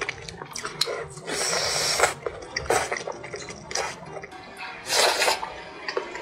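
Close-miked eating sounds of fatty red-braised pork belly being bitten and chewed: wet smacks and many small clicks, with a few louder, longer wet bursts.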